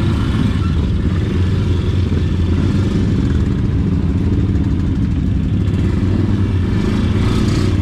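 ATV engine running steadily while riding.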